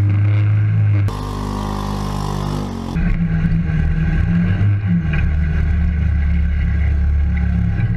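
Utility vehicle's engine running steadily as it drives over muddy ground. About a second in, a quieter passage follows: the engine note falls slowly in pitch under a hiss. The louder steady engine sound returns at about three seconds.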